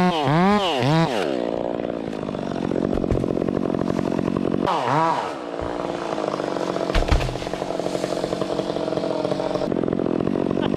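Two-stroke chainsaw revving up and down during the first second, then held at high revs cutting wood, with another quick dip and rise in revs about five seconds in.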